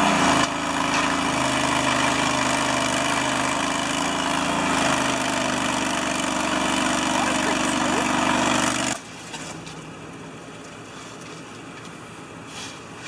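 A truck's engine running steadily under load, with a loud rushing noise over its hum; about nine seconds in it cuts off suddenly, leaving a much quieter background.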